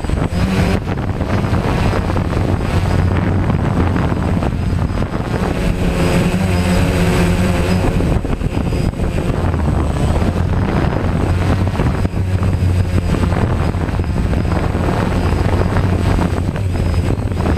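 DJI Phantom quadcopter's motors and propellers running in flight, heard up close from a camera mounted on the drone: a steady loud buzz with a thin high whine above it, its pitch shifting briefly about six seconds in.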